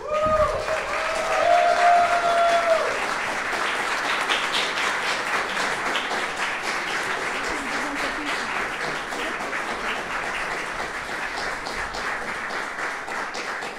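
Audience applauding steadily, a dense patter of many hands clapping that eases a little near the end. A long held cheer from one voice rises over the applause in the first few seconds.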